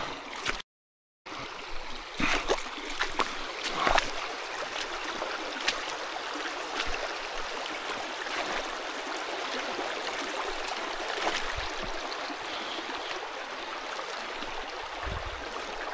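Shallow rocky stream running over stones in a steady riffle, with a few short knocks in the first several seconds. The sound cuts out to silence for a moment just under a second in.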